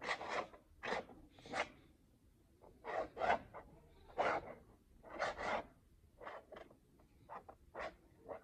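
A plastic paint scraper dragged through wet paint on canvas: a run of about fifteen short, irregular scraping swipes.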